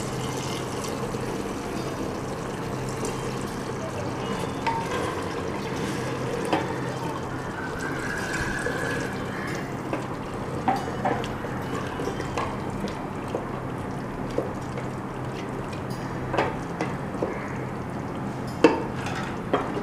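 Water poured into a pressure cooker of hot fried masala and mutton, then a wooden spoon stirring the curry, with a few sharp knocks against the cooker in the second half.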